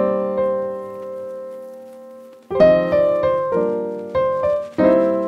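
Background piano music: a chord held and left to ring for a couple of seconds, then a run of chords struck about every half second.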